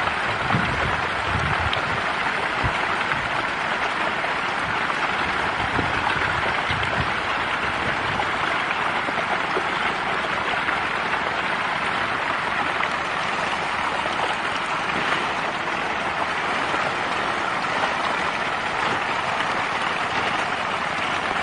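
A dense mass of fish thrashing and flopping in shallow muddy water. It makes a continuous, even patter of small splashes, much like rain, that stays steady throughout.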